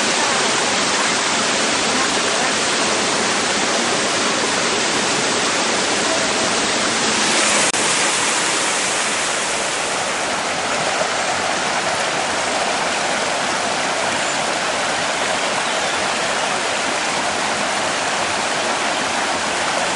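Rushing water of a rocky forest stream, a steady, unbroken noise.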